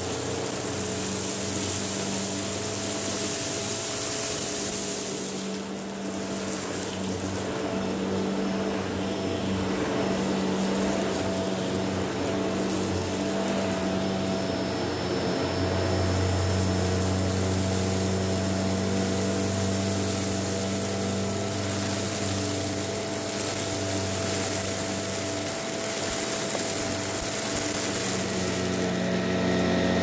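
Shark Rotator Powered Lift-Away upright vacuum running on carpet, a steady motor whine with the rush of suction that swells and dips as the head is pushed back and forth. A deeper hum joins about halfway through.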